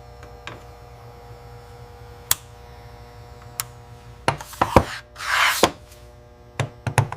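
Workshop sounds: a steady low hum under scattered sharp clicks and knocks of tools or parts, with a short hiss a little past halfway.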